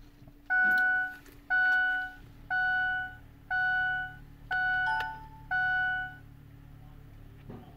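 Ford F-250 Super Duty's dashboard warning chime sounding six times, about once a second, just after the ignition is switched on, over a low steady hum.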